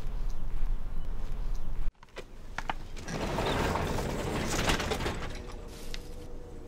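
A low steady background rumble that cuts off about two seconds in, then a few sharp clicks as a wooden garage door is gripped, and the door lifting and running along its tracks for about two and a half seconds before fading.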